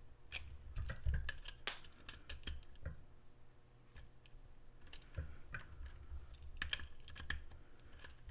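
Nut driver tightening the wheel nut onto an RC truck's rear wheel: irregular light clicks and rattles of small metal and plastic parts.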